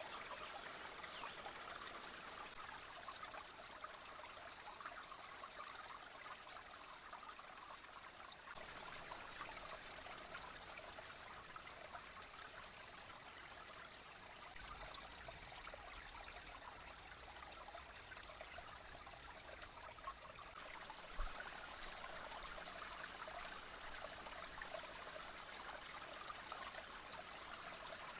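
Creek water flowing and trickling steadily. A faint low rumble comes in about halfway, and a single short knock sounds near the three-quarter mark.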